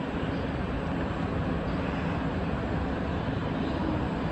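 Siemens C651 metro train pulling into the station, a steady rumble of wheels and running gear.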